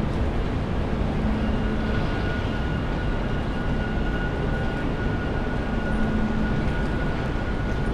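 Steady train-station waiting-room ambience: a continuous low rumble and hum, with a faint steady high whine from about a second and a half in.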